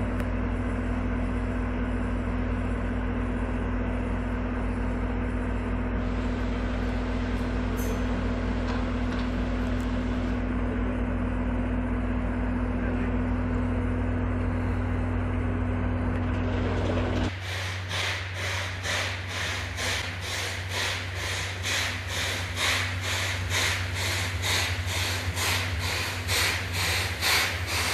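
DE10 diesel locomotive idling with a steady hum. About seventeen seconds in this gives way to a C11 steam locomotive working, its exhaust beating about three times a second as the train approaches.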